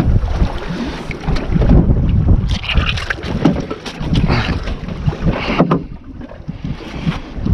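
Wind buffeting the microphone on a small open boat at sea, a heavy low rumble, with scattered knocks and a few brief splashy rushes.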